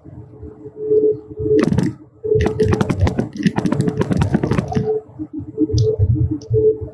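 Ride noise inside a moving train: a steady motor hum over a low running rumble, with a burst of rapid clattering from about a second and a half to about five seconds in.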